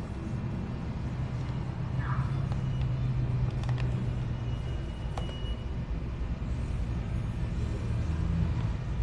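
Street traffic: a steady low rumble of passing cars, heaviest in the first half, with a few faint sharp clicks around the middle.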